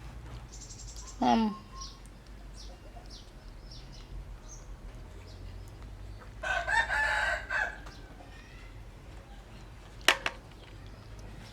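A rooster crows once, starting about six seconds in and lasting about a second and a half. About a second in there is a short, loud call that falls in pitch, and a single sharp tap comes near the end.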